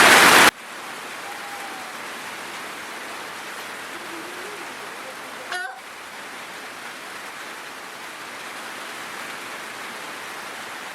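Steady rain falling, an even hiss. It begins with a much louder rush of noise that cuts off abruptly about half a second in. There is a single sharp click about halfway through.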